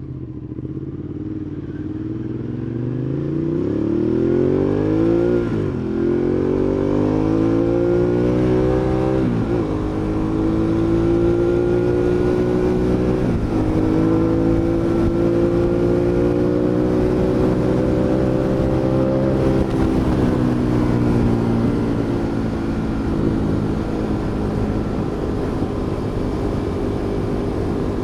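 Ducati Monster 821's 821 cc L-twin engine accelerating up through the gears, with three quick upshifts about five, nine and thirteen seconds in, then a long slow pull in one gear. Near the end the revs fall as the throttle is rolled off, then hold steady while cruising.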